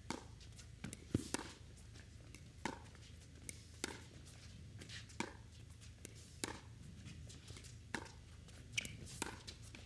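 Pickleball paddles striking the plastic ball back and forth in a soft dink rally at the net. Each hit is a sharp pop, about one every second and a quarter.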